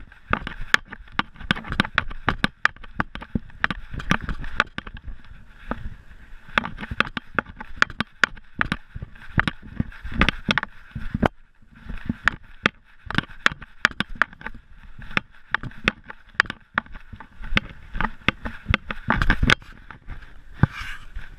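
Noise from a GoPro strapped to a dog's chest as the dog moves about: irregular knocks, rattles and rubbing of the camera in its mount, with thuds from the dog's movement.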